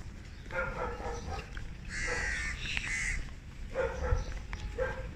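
Repeated animal calls: several separate cries of under a second to about a second each, the longest and loudest about two seconds in.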